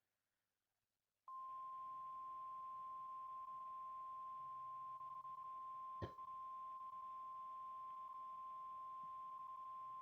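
NOAA Weather Radio's 1050 Hz warning alarm tone from a Required Weekly Test of the Emergency Alert System: a single steady beep that begins about a second in and holds for about nine seconds, over faint radio hiss. A brief click sounds about six seconds in.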